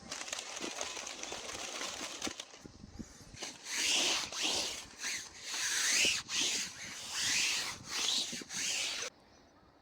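Hand saw cutting through hard natural firewood. A steady rasp gives way to about seven quick back-and-forth strokes, about one every 0.7 s, then it stops abruptly near the end.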